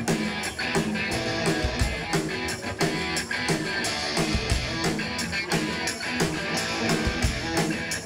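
Live rock band playing an instrumental passage: electric guitars through Marshall amps over a steady drum-kit beat.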